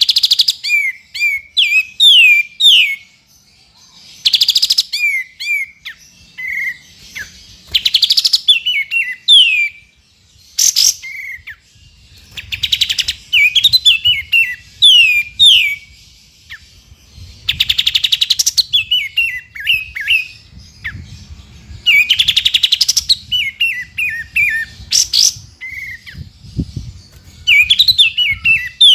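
Olive-winged bulbul (kapas tembak) calling: quick runs of sharp, downslurred chirps, broken every few seconds by loud, harsh, buzzy rattles. A faint low rumble sits underneath in the second half.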